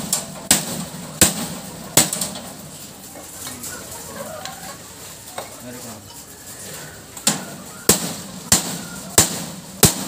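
Hammer striking metal in steady blows about two-thirds of a second apart, each with a short bright ring. Three blows come at the start and a run of five in the last three seconds, with a pause between.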